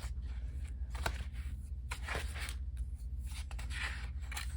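Paper planner pages being pulled off the plastic discs of a disc-bound Happy Planner: scattered sharp clicks and brief paper rustling, over a low steady hum.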